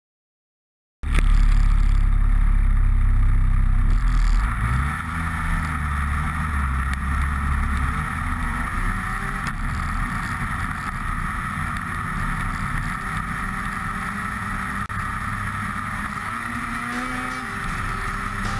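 Snowmobile engine running, heard from its hood. The sound cuts in about a second in with a loud low rumble for the first few seconds, then settles into a steadier drone whose pitch rises and falls with the throttle.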